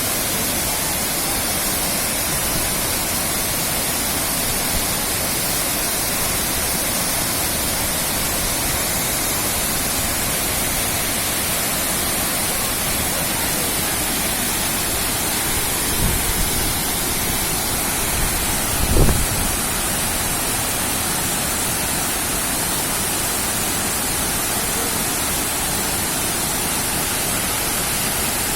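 Steady rushing of falling water from the Shaki waterfall, an even hiss with no breaks. Two brief low bumps interrupt it a little past the middle.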